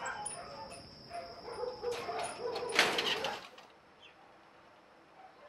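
Dogs barking and yelping in a large kennel compound, with one loud sharp sound near the three-second mark. The sound cuts off abruptly about three and a half seconds in, leaving only quiet room tone.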